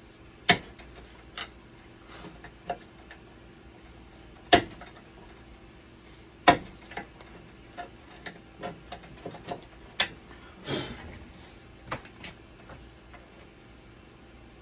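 Irregular metallic clicks and taps of a hand tool working at the screws of a dialysis machine's blood pump cabinet, a few sharp and loud, with a brief scrape about two-thirds through. A faint steady hum runs underneath.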